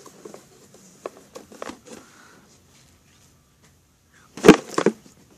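Handling noise as a tablet is moved about: a few light knocks and rubs, then a loud thump near the end with a short clatter after it.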